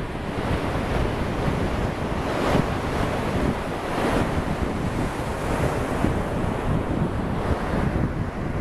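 Ocean surf breaking and washing onto a sandy beach, swelling louder about two and a half and four seconds in, with wind buffeting the microphone underneath.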